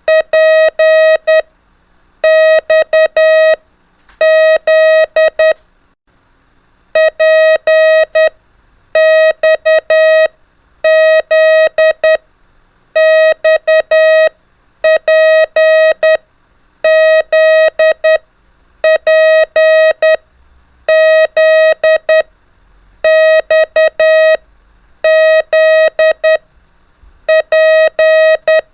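Morse code practice tones: a single steady beep keyed on and off into short dots and dashes sending the letters P, X and Z over and over. Each letter takes a little over a second, with a short gap before the next.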